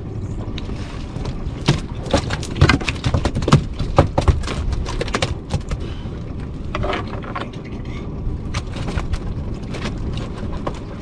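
A freshly landed fish slapping and knocking on the wet deck of a small fishing boat: a run of sharp knocks over a few seconds, then fewer. Under it, the steady low rumble of the boat at sea.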